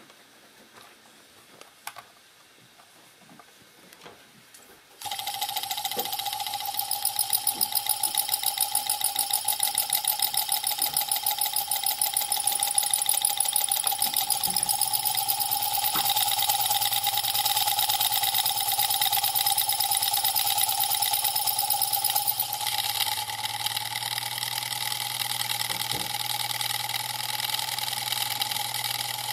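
Homemade DC electric motor starting up about five seconds in, its coil rotor then spinning fast and steadily with an even, rapid mechanical buzz and a high whine. A few faint clicks come before it starts.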